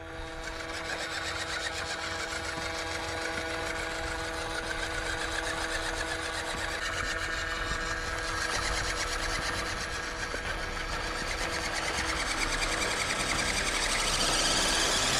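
Small electric motor and gear drivetrain of a 1/14-scale JY66 4WD RC Jeep crawler whirring steadily, growing gradually louder toward the end.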